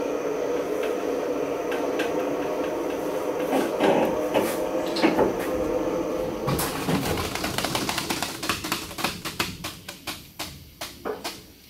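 Two-post vehicle lift lowering a pickup: a steady hydraulic hiss, with a quick run of clicks from about halfway through that grows sparser and fades out near the end.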